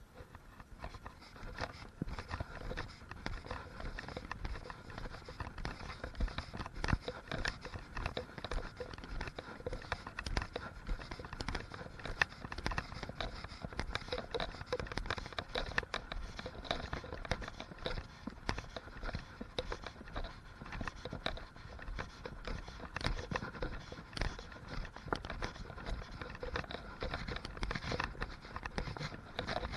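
Typhoon wind and rain, gusting unsteadily, with crackling buffeting from the wind on the microphone.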